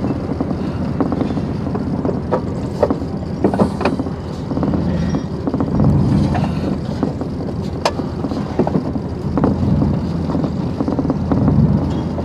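Vehicle driving slowly over a rough dirt yard, heard from inside the cab: steady low engine and road rumble with scattered rattles and clunks throughout.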